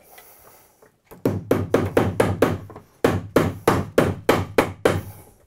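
Hammer driving a cable staple into a wooden stud to hold electrical cable. Two runs of quick, light blows, about four or five a second, with a short pause between.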